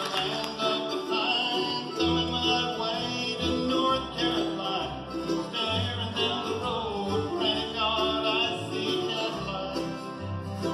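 Live bluegrass band playing a tune on acoustic string instruments: guitars, mandolin, dobro and banjo carry held, wavering melody lines over upright bass notes.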